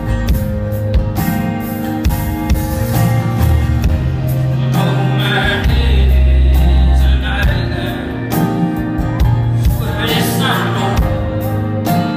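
Live music: a man singing over an acoustic guitar, with deep sustained bass notes swelling through the middle; the sung phrases come about five seconds in and again about ten seconds in.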